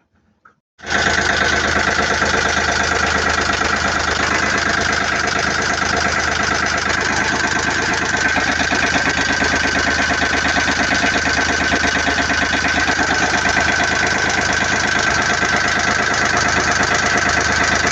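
Volvo Penta 2003 three-cylinder marine diesel engine running at a steady idle. It comes in abruptly about a second in and holds an even, unchanging note.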